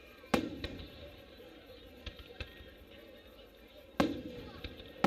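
Aerial firework shells bursting. Two loud bangs, one just after the start and one about four seconds in, each followed by a short rumble, with smaller cracks between and after them.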